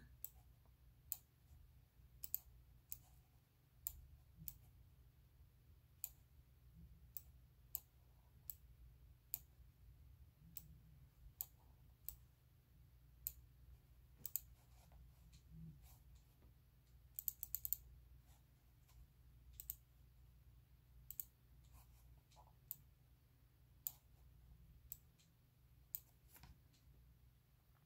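Faint, scattered clicking from working a computer's mouse or keys, a click every second or so with a quick flurry about seventeen seconds in, over a low steady hum.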